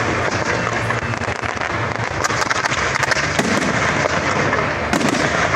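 Fireworks display: a dense, continuous crackling of many rapid small pops and bursts, keeping a steady loudness throughout.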